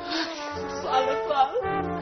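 Background music with long held notes.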